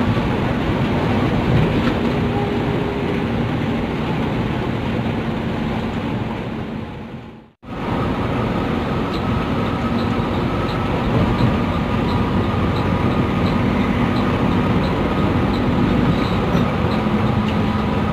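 Intercity bus engine and road noise heard inside the cabin while the coach is moving. It is a steady rumble that drops out for a moment about seven and a half seconds in. After the break a light, regular tick comes about twice a second.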